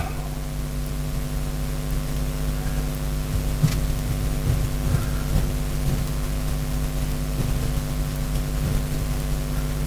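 Steady low electrical or machine hum, with a few faint clicks of small parts being handled while carburettor screws are fitted, about four and five seconds in.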